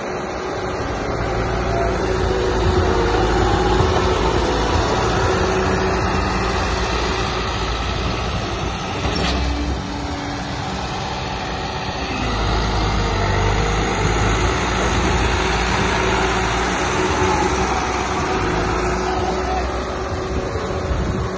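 Case 1107 single-drum soil compactor running and driving on dirt, its diesel engine and hydraulic drive working steadily under test after repair of the hydraulic pump and motor. The machine noise swells louder twice as it works.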